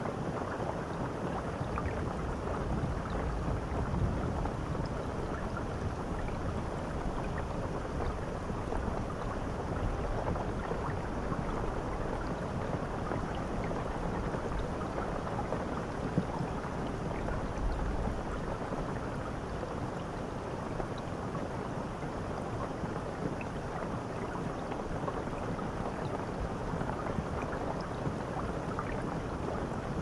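Shower head spraying water onto a shower tray: a steady rush of falling water with a low rumble underneath.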